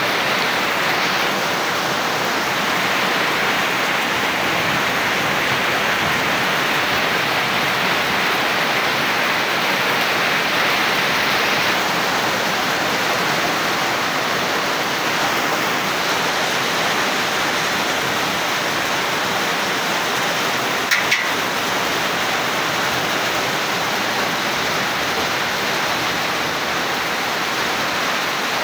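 Heavy rain falling steadily, with water streaming off the roof edge onto the wet ground. Two quick knocks sound in close succession about two-thirds of the way through.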